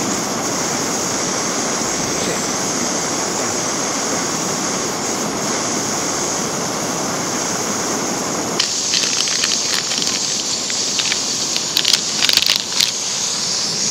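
Gas canister camping stove burning steadily under a pot of water, a continuous hiss. About two-thirds of the way through, the deeper part of the hiss drops away and a foil food pouch crinkles as it is handled.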